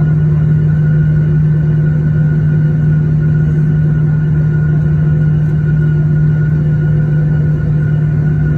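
Airliner's jet engines at low taxi power heard from inside the cabin: a steady drone with a strong low hum and a fainter higher tone.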